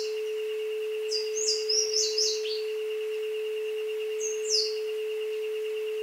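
A steady low electronic tone near 432 Hz held under a jungle recording, with a high steady buzz above it. A bird gives quick, falling high chirps in a flurry about a second in and once more near the middle.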